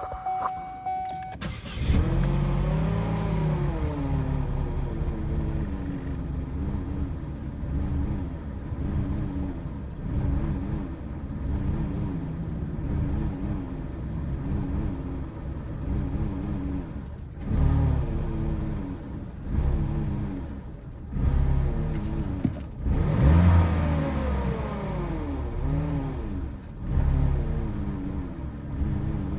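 Chevy Cruze engine starting about a second and a half in, flaring and settling into an uneven idle whose pitch keeps wavering, with several brief revs in the second half: the rough idle that the owner is showing.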